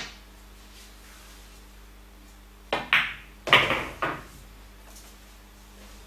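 Pool balls clacking: the cue strikes the cue ball and balls knock together on the table, a quick run of four or five sharp clacks about three seconds in, each with a brief ringing.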